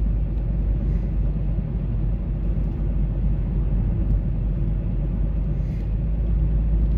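A car driving at a steady speed: a steady low rumble of engine and road noise.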